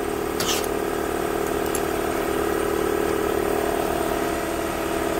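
Steady hum of a shop machine's motor running, with a brief hiss about half a second in.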